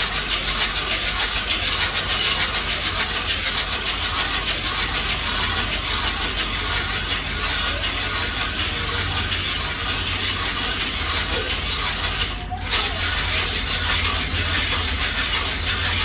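Coffee beans rattling and tumbling in a hand-cranked mesh drum roaster as it turns over a portable gas stove, with a low rumble from the burner underneath. The rattle breaks off briefly about twelve seconds in.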